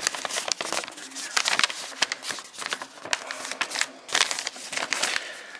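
Packaging being handled, crinkling and rustling in irregular bursts, loudest about four seconds in.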